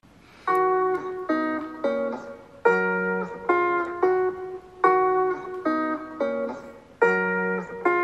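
Background music: a repeating pattern of chords, each struck sharply and fading, starting about half a second in, with the phrase coming round about every two seconds.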